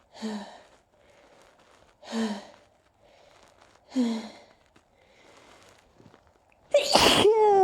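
A person's sneezing fit: three short sneezes about two seconds apart, then a louder, longer sneeze near the end whose voice falls in pitch.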